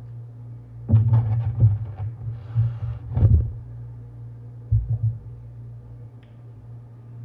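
Close-miked eating sounds: bursts of chewing and mouth noises through the first half and again briefly in the middle, over a steady low hum.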